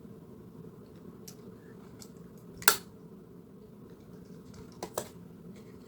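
A few short, sharp clicks from small objects being handled: one loud click about halfway through, then a quick double click near the end, over quiet room noise.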